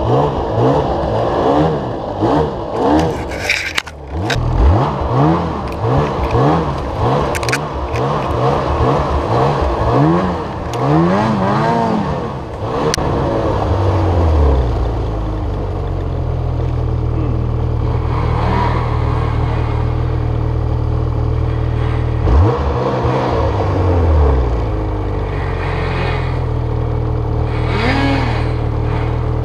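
Lynx Boondocker snowmobile's 800R E-TEC two-stroke twin revved in short repeated bursts, the pitch rising and falling over and over, with a few sharp scrapes and snaps of branches against the sled in the first seconds. About halfway through it settles to a steady run at constant speed, dropping off briefly and picking up again about two-thirds of the way in.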